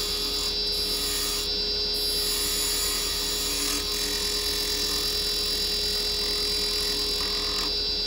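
Wood lathe running with a steady whine while a carbide square cutter, rolled over on its side, shaves the spinning beech.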